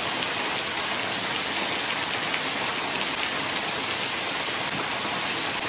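A small waterfall's falling curtain of water splashing onto rocks, a steady, even hiss with no let-up.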